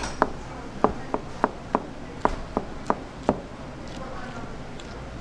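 A large kitchen knife slicing boiled pork liver, its blade knocking on a plastic cutting board at each cut: about nine quick knocks, roughly three a second, that stop a little over three seconds in.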